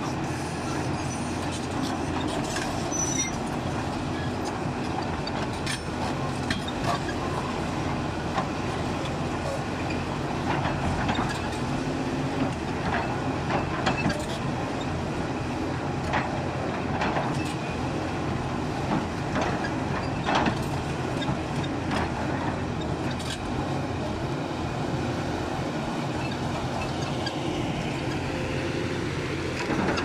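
Hyundai R290 crawler excavator's diesel engine running steadily under load as its bucket digs into a rocky hillside, with scattered sharp knocks and scrapes of rock against the steel bucket.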